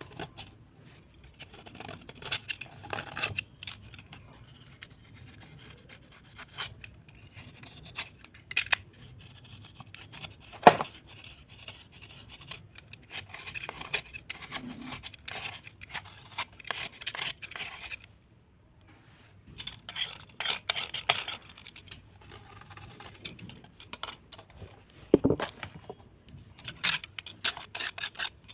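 Irregular scraping and crunching of a hard, crumbly earthy material being worked, with many crisp clicks and a few sharp louder taps.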